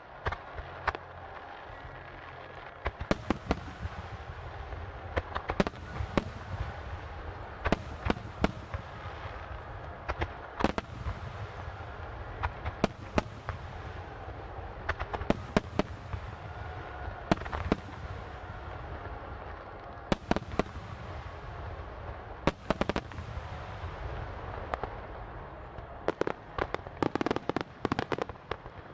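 Aerial fireworks shells bursting in a starmine barrage: sharp bangs every second or so over a continuous low rumble, crowding into a rapid cluster near the end.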